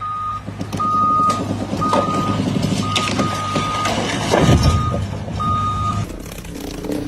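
A vehicle's reversing alarm beeping about once a second over a running engine. Both stop abruptly about six seconds in.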